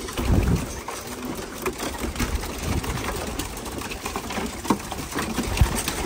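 A loft full of homing pigeons cooing, with scattered short claps and clatters of wings and birds moving about the nest boxes.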